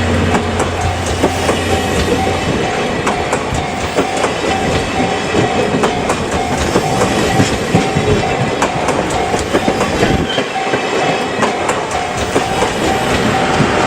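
Train hauled by a DE10 diesel locomotive rolling past over a level crossing: the wheels click rapidly over the rail joints, while the crossing's warning bell rings in a steady repeating ding. A low engine drone at the start fades within the first second or two.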